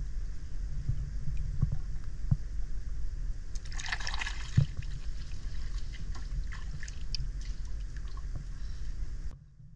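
Water splashing for about a second, around four seconds in, as hands plunge into the water beside a wooden canoe, ending in a sharp knock; a few faint knocks and clicks follow over a steady low rumble that cuts off suddenly near the end.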